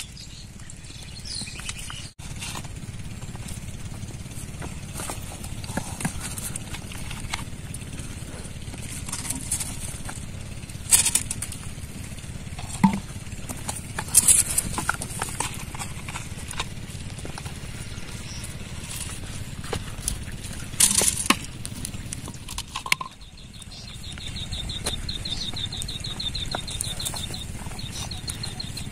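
Handling noises from plastic bottles and a woven plastic sack: scattered knocks and clicks and a few short bursts of plastic rustling over a steady low rumble. About three-quarters of the way through, a rapid high-pitched trill starts and continues.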